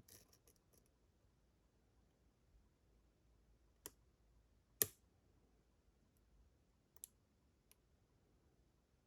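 Lock pick working the pin stack of a Picksmith Silent Hill challenge lock while it is single-pin picked: a few faint, sharp clicks spaced out over otherwise near silence, the loudest about halfway through.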